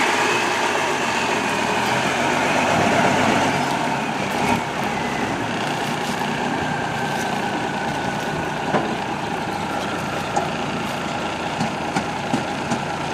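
A truck running steadily, with a faint whine slowly falling in pitch and a few light clicks and rattles.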